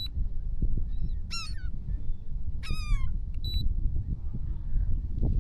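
A bird calling twice, each call a harsh, pitched cry that slides down in pitch, over a steady low rumble.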